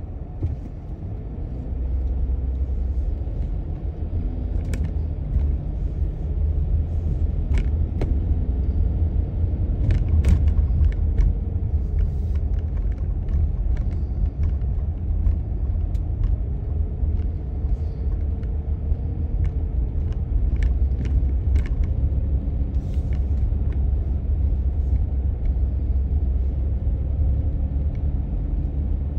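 Car driving on the road: a steady low rumble of tyres and engine, growing louder over the first couple of seconds, with scattered light clicks and knocks.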